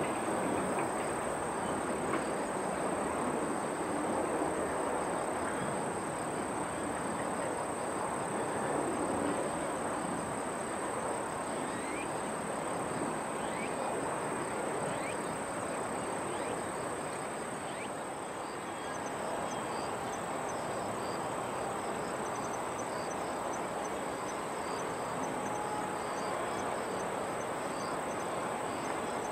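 Outdoor ambience: a steady wash of distant noise, with a thin, high, unbroken insect drone and faint repeated chirps in the second half.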